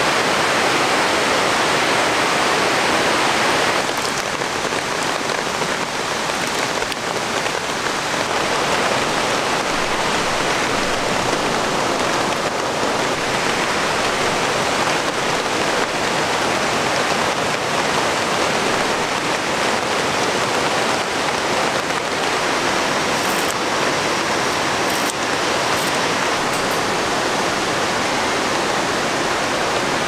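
Steady rushing of a waterfall and rain-swollen mountain stream, mixed with falling rain. The level drops slightly about four seconds in.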